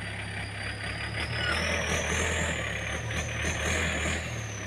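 Yanmar diesel tractor running under load as it pulls a disc plough through wet soil. The engine grows louder from about a second and a half in until near the end, and a high whine rises and falls along with it.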